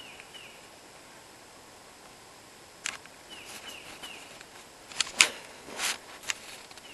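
Outdoor background with a bird calling in short, repeated downward chirps, and several sharp knocks and cracks: one about three seconds in and a cluster around five to six seconds, the loudest just after five seconds.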